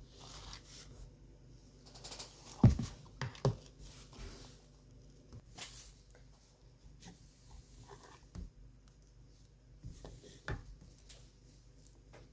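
Eating ice cream with a metal spoon: scattered small clicks and scrapes of the spoon against the bowl, with soft wet mouth sounds. The loudest click comes about two and a half seconds in, with a few more spread through.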